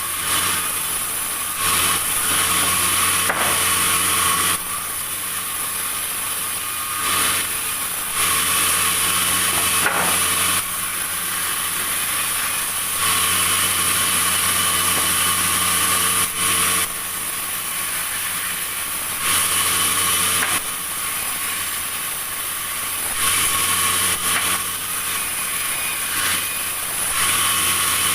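Sawmill machinery running with a steady hum. Every few seconds it grows louder and hissier for a stretch of two to four seconds.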